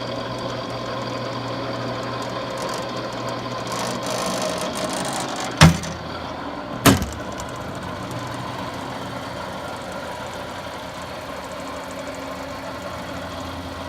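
Dong Yang precision lathe running with a steady mechanical hum. Two sharp knocks about five and a half and seven seconds in stand out above it, and the low part of the hum changes after the first.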